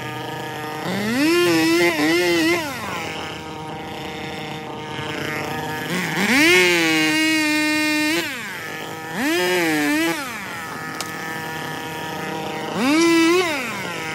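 Two-stroke chainsaw revving to full throttle four times, each rev about one to two seconds long with the pitch rising, holding, then falling back. It drops to idle between the revs.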